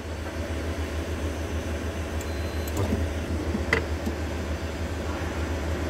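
Steady low hum with a background noise haze, and one light click a little past the middle.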